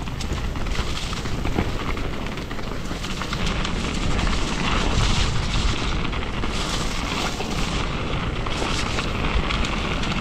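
Mountain bike rolling down a dirt singletrack: tyres crunching over loose gravel and leaves with many small ticks and rattles from the bike, over a steady low rush of wind on the microphone.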